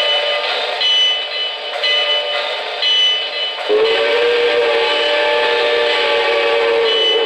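Electronic sound system of an O-gauge model steam locomotive blowing one long steam whistle that starts about halfway through, over a steady hiss.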